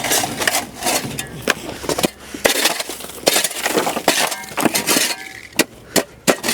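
A shovel chipping and scraping at ice and frozen snow: an irregular run of sharp crunching knocks and scrapes.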